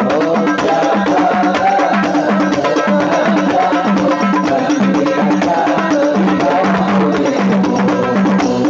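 Javanese sholawat devotional song: voices singing over a steady hand-drum rhythm.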